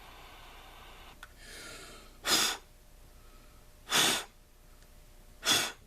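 A faint click, then three short, sharp puffs of breath blown out about a second and a half apart.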